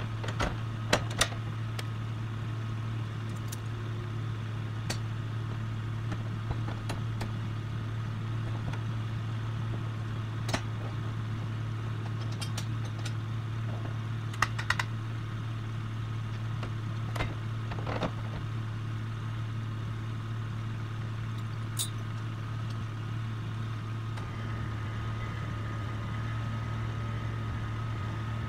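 An engine idling steadily, a low even hum, with scattered sharp metallic clicks and clinks as the winch line and its hook hardware are handled.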